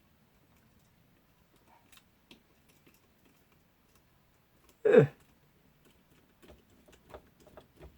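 Faint, scattered small clicks and taps of tiny screws, tools and plastic parts being handled during a drone gimbal repair, with one short, loud sound that falls in pitch about five seconds in. The clicks come more often in the last couple of seconds.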